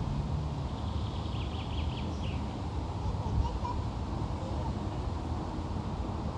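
A bird gives a quick series of high notes lasting about a second, a little after the start, with a couple of faint chirps later, over a steady low rumble.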